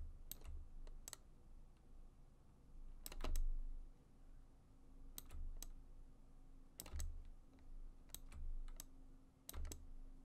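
Computer mouse buttons and keyboard keys clicking: scattered clicks, mostly in pairs a fraction of a second apart, about one pair every second or two.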